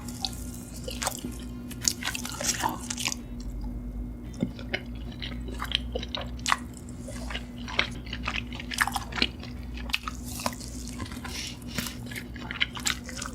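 Close-miked wet chewing and mouth smacking, a run of irregular short clicks and squelches as food is eaten, over a steady low hum.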